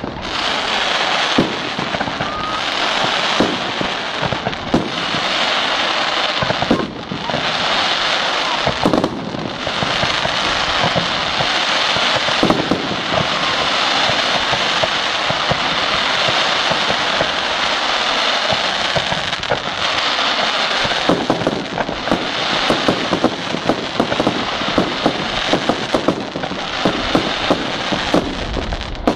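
Firework fountains spraying sparks: a steady loud hiss full of crackles and pops, which becomes a denser crackle from about two-thirds of the way in.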